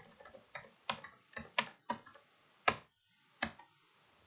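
About eight sharp, short clicks at uneven intervals from someone working a computer's mouse and keys while paging through a document.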